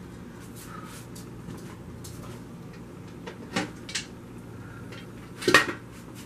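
Metal lid of an aluminium pressure canner knocking and clanking against the pot as it is set on and twisted shut: two clanks about three and a half to four seconds in, then a louder clank about five and a half seconds in.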